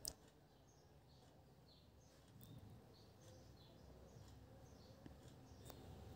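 Near silence with faint small birds chirping repeatedly, short high calls a few times a second. A single sharp click comes right at the start.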